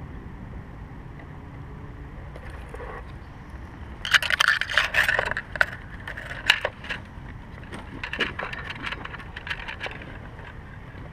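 Hemlock branches and twigs crackling, snapping and scraping as a climber pushes through them. The crackling starts suddenly about four seconds in and comes in a dense run of sharp cracks, over a low wind rumble on the microphone.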